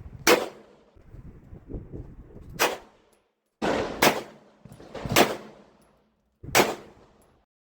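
Five single gunshots spaced one to two seconds apart, each a sharp crack with a short ringing tail.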